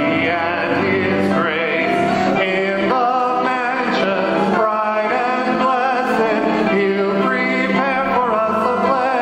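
A hymn sung in church by two women at microphones with the congregation, men's voices among them. Held notes waver with vibrato, and the singing runs on without a break.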